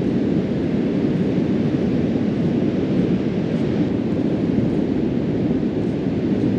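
Steady low rumble of wind buffeting the microphone, an even noise with no distinct events.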